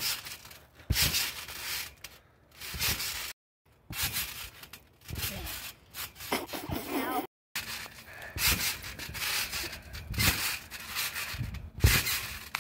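Repeated bouncing on a trampoline: each landing gives a thump and a rubbing rustle, about once a second at an uneven pace, and the sound cuts out completely for a moment a couple of times.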